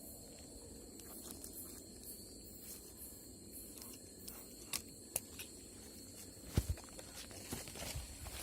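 Steady high-pitched insect chorus of the night jungle, with scattered sharp clicks and knocks of handling noise, the loudest a couple of knocks in the second half.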